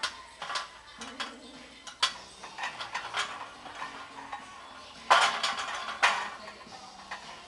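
Loaded barbell clinking and rattling in a squat rack as the lifter moves under it: irregular sharp metallic clicks, then a louder, noisier burst about five seconds in and another a second later.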